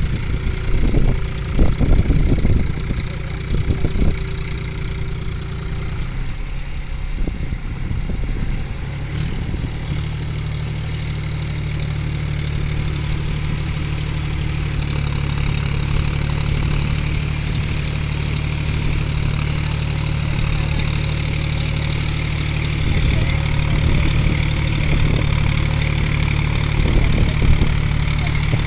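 John Deere 4WD tractor's diesel engine working under load as it drives a rotavator through deep, waterlogged mud. It runs unevenly with a few sharp knocks for the first several seconds, then settles into a steady note.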